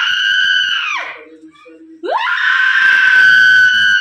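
A woman screaming: one long, high scream breaks off with a falling pitch about a second in, and after a brief low voice a second scream rises in about two seconds in and is held.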